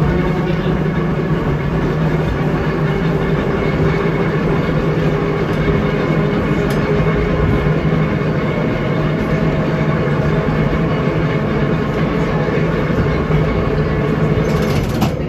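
Electric trolley car running along the track, heard from inside the car: a steady hum from the traction motors over the rumble of wheels on the rails.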